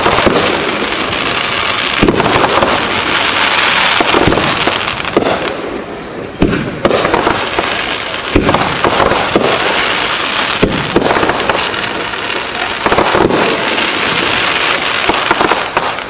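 Aerial fireworks shells bursting one after another, a sharp boom every second or two over a continuous dense crackle and hiss.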